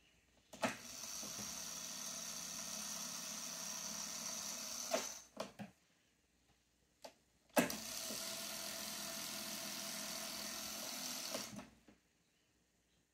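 Technics RS-614 cassette deck fast-winding its tape: a key clunks down and the transport whirs steadily for about four and a half seconds, then stops with clicks. A second key clunk starts another steady whir of about four seconds, which stops shortly before the end.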